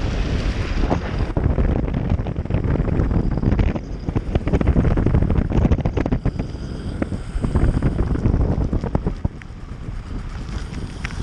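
Wind buffeting the microphone over the rumble of an electric mountainboard's pneumatic tyres rolling on asphalt, with many small clicks and knocks from the board.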